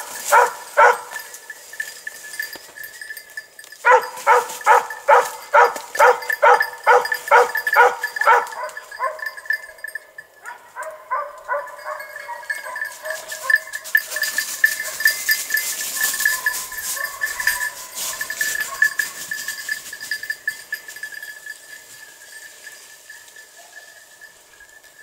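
Hunting dogs barking in quick, regular runs of about three barks a second, loudest near the start and again from about four to nine seconds in. In the second half the barking is fainter and more continuous.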